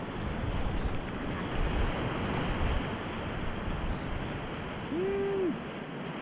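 Rushing whitewater of a river rapid, with wind buffeting the microphone in low rumbles over the first few seconds. About five seconds in comes one short pitched call from a person.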